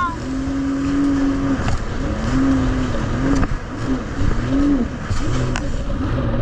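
Jet ski engine running at speed over rushing wind and spray. Its pitch holds steady at first, then rises and falls about once a second, with a few sharp knocks.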